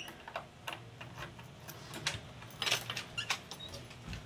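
Key being worked in a deadbolt lock: a string of light, irregular metallic clicks and rattles.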